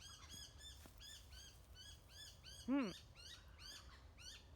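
A bird calling a steady series of short, high chirps, about three a second. About two-thirds of the way through there is one louder, brief sound that rises and falls in pitch.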